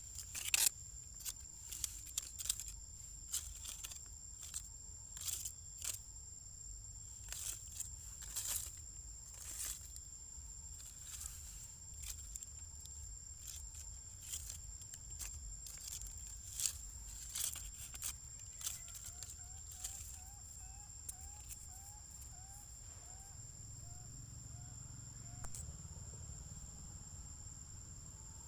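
Crinkling and crackling of plastic as a long-tailed macaque handles a green plastic wrapper, in sharp irregular clicks, over a steady high insect drone. A run of about a dozen short rising chirps comes in the second half.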